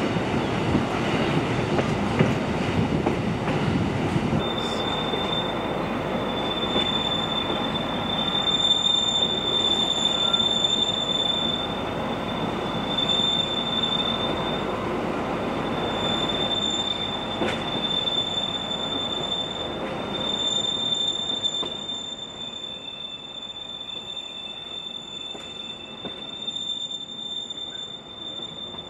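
Carriages of the La Mure metre-gauge electric railway rolling along the track with a rumble, joined about four seconds in by a high, steady wheel squeal that comes and goes through the rest. The rumble grows quieter near the end while the squeal carries on.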